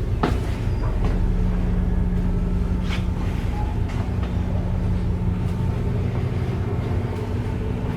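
Heavy machinery running steadily: a loud low drone with a constant hum, with a few short knocks over it.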